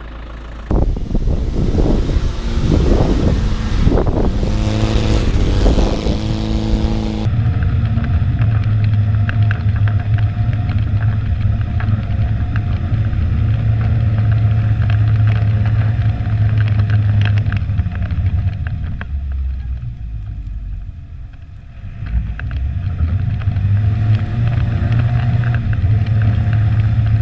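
Land Rover Defender 90's engine running as it drives, a steady low drone that eases off for a couple of seconds about two-thirds of the way through and then picks up again. The first several seconds are noisier, with the engine pitch rising and falling.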